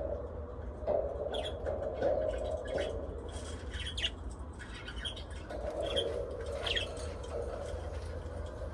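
Small pet parrots, budgies and lovebirds, chirping in many short scattered calls, over a steady low hum.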